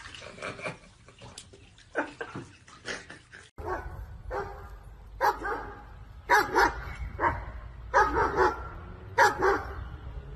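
A dog barking repeatedly, about once a second, some barks coming in quick pairs, starting about four seconds in after a few faint knocks.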